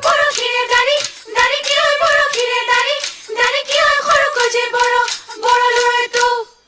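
High voices singing an Assamese Bihu song in unison. They hold notes in short phrases with brief breaks, with no drums underneath. The singing cuts off just before the end.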